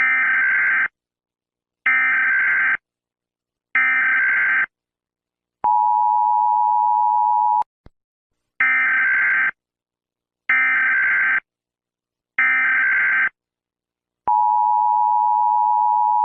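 Emergency Alert System header tones: three short screeching data bursts, then a two-second two-note attention signal, then three more bursts and a second attention signal.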